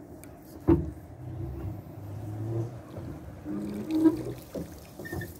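A sharp knock against the boat, then a low steady hum with light water sounds from the boat moving through shallow, reedy water.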